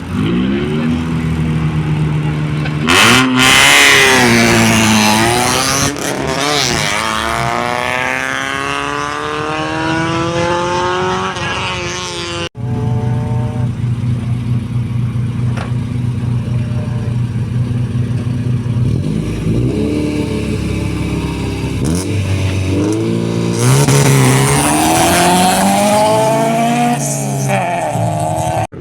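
Rally cars at a start line. An engine is revved hard, then the car launches and pulls away, its pitch climbing through the gears. After a cut, another car idles steadily, blips its throttle and launches away at full throttle.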